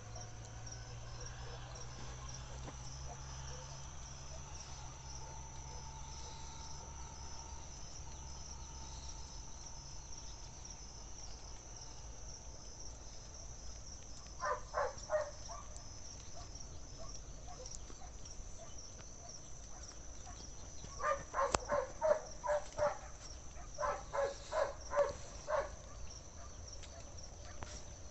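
Insects trilling steadily at a high pitch, with a low hum under them that fades out about ten seconds in. Around the middle, then again more strongly near the end, an animal gives clusters of short, rapid calls, several a second.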